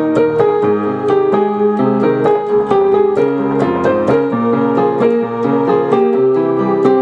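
Instrumental song music led by keyboard, sustained chords and melody notes changing every half second or so, with no singing.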